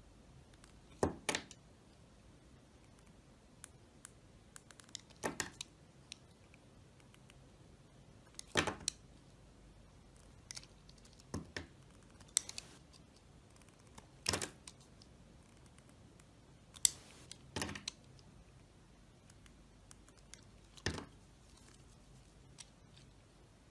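A knife cutting into dry soap: about a dozen sharp, crisp cuts, a second to a few seconds apart, some in quick pairs.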